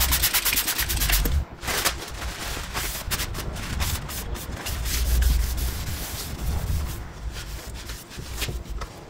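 Cloth rubbing over a car's painted front fender, fast and even for the first second or so, then in uneven wiping strokes: the panel being wiped down with degreaser before repair.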